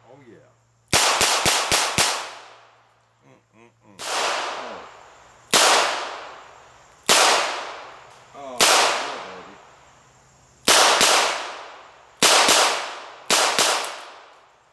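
Smith & Wesson Model 617 .22 LR double-action revolver firing. A quick string of several shots comes about a second in, then single shots every one to two seconds, each trailing off in a long echo.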